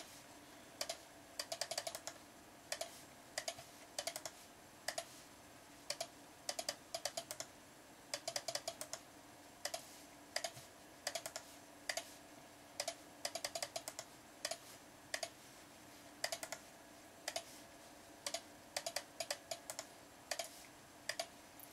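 Computer mouse and keyboard clicks, sharp and quick, coming in irregular small clusters every second or so, over a faint steady hum.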